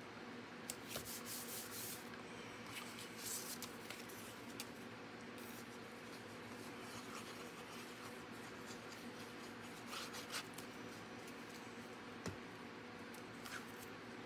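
Paper panels being handled, rubbed and pressed down onto a card base: scattered short scrapes and rustles of card stock, with a faint steady hum underneath.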